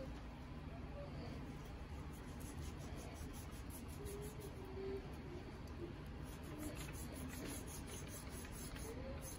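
A thin knife slicing and scraping through the fat cap of a raw beef brisket as it is trimmed: faint, quick scratchy strokes over a low steady hum.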